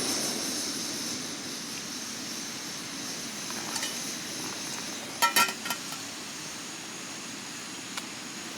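Steady rushing background noise, with a quick cluster of clinks of dishes or glassware about five seconds in and one faint tick near the end.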